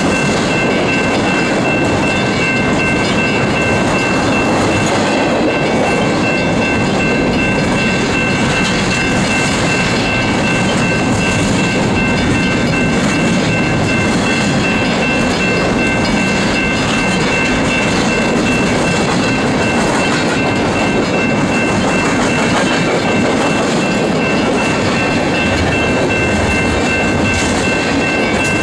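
Intermodal container train's well cars rolling past close by at speed: a loud, steady rumble and clatter of steel wheels on the rails, with a steady high-pitched ringing tone over it.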